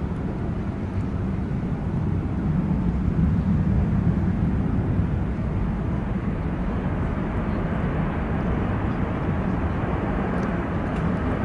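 Airbus A320 jet engines running as the airliner rolls along the runway, a steady low rumble that swells a little a few seconds in.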